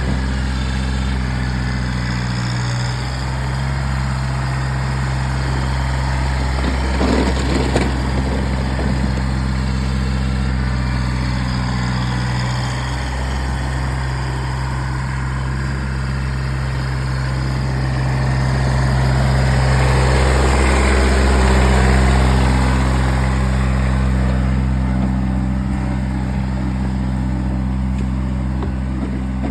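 Kubota BX1800 compact tractor's three-cylinder diesel engine running steadily. There is a short clatter about a quarter of the way in, and the engine swells louder for a few seconds about two-thirds through.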